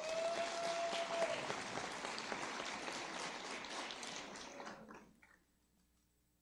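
Audience applauding, the clapping slowly thinning out and then cutting off sharply about five seconds in. A short held tone sounds over the clapping in the first second.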